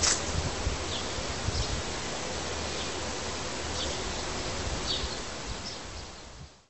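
Steady outdoor background noise with a few faint high chirps. It opens with one last footstep on gravel and fades out near the end.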